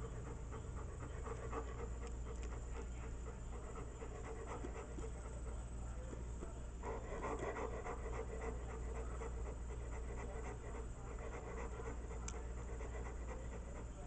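A dog panting rapidly and steadily, louder for a couple of seconds midway, over a low steady hum.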